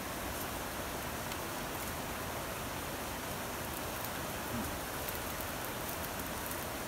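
Steady hiss of rain falling on forest foliage, with a few faint scattered ticks of drops.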